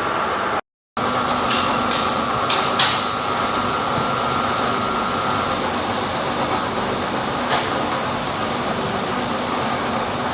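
Lathe running steadily, with a faint high whine that stops about halfway through and a few sharp metallic clicks. The sound cuts out completely for a moment just under a second in.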